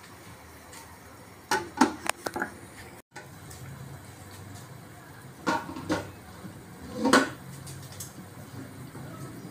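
Kitchen utensils and cookware clattering: three short bursts of sharp clinks and knocks over a low steady background.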